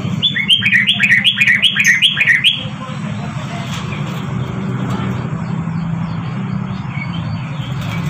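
Yellow-vented bulbul (trucukan) singing one quick phrase of about six repeated, bubbling notes in the first two and a half seconds. A steady low hum runs underneath.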